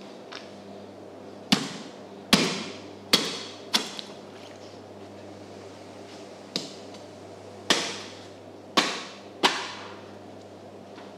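About eight sharp knocks at uneven intervals, each with a short echo, from work on a giant bluefin tuna on a wooden cutting board. A steady low hum runs beneath.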